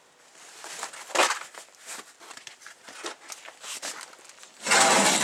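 Old carpet floor mat being pulled up off a rusted-out truck cab floor, rustling and crackling with loose mud and debris, with scattered small knocks and a louder scraping rush near the end.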